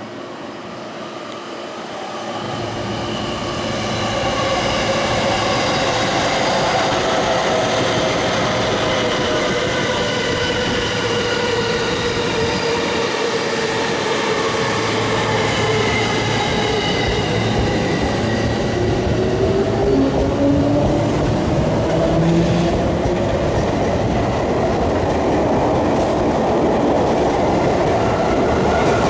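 Sotetsu New 7000 series electric commuter train standing at the platform with a steady mechanical hum, then pulling away, its motor tones rising in pitch about two-thirds of the way in and its wheels clicking over the rail joints as the cars pass.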